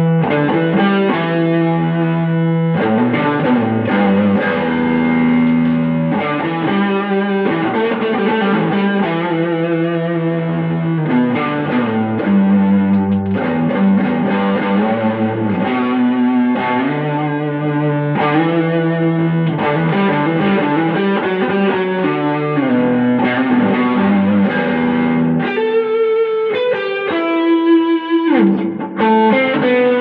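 Les Paul-style electric guitar with humbucker pickups, played continuously in a run of held, ringing notes and chords to check its sound after a repair.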